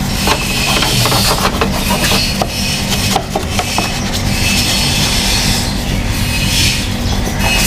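Pressure washer running: its motor hums steadily under a loud hiss of water spray that swells and fades.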